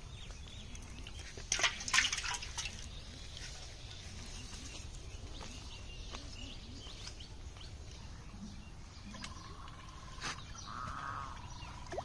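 A short burst of water splashing about two seconds in, as a freshly caught fish splashes in a basin of water, then faint birds chirping.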